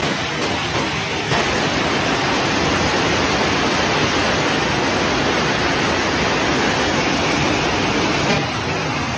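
Rushing floodwater: a loud, steady noise of fast-moving water, changing abruptly about a second in and again near the end.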